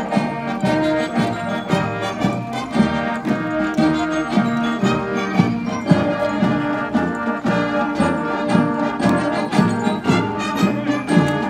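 High school marching band playing, brass (trumpets and trombones) carrying the tune in full chords over a steady, regular beat.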